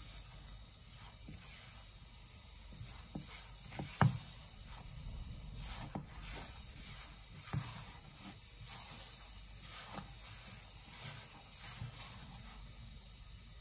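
A hand working wheat flour and water in a plastic bowl: soft, irregular rustling and scraping as the flour clumps into crumbly dough, the first stage of making roti dough. A sharp knock about four seconds in.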